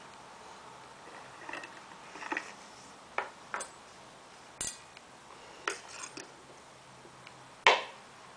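Metal forks clicking and tapping against a plastic high-chair tray, in scattered single knocks with one louder clack near the end.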